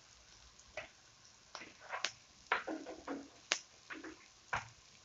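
Hot oil popping and spitting in a wok of frying onions and curry powder: a scattering of sharp, separate crackles, about seven over a few seconds.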